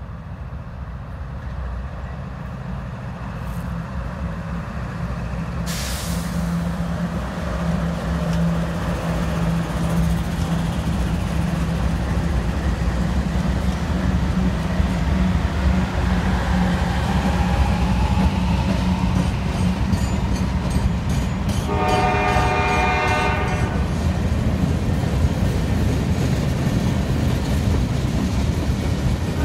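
Norfolk Southern freight train's diesel locomotives (three GE Dash 9-40CWs and an EMD SD40-2) approaching and passing close by, the engine drone and rumble of wheels on rail growing louder. A locomotive horn sounds briefly, a chord of several notes, about three-quarters of the way through, and the rolling freight cars follow.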